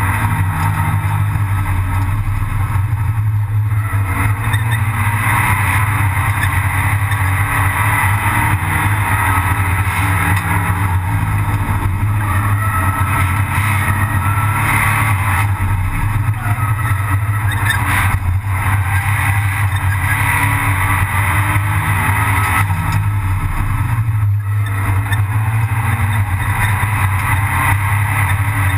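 Abarth 500 Assetto Corse race car's 1.4-litre turbocharged four-cylinder engine running hard at racing speed, heard loud from inside the stripped-out, roll-caged cabin together with road and tyre noise. The engine note holds steady, with a couple of brief dips about eighteen and twenty-four seconds in.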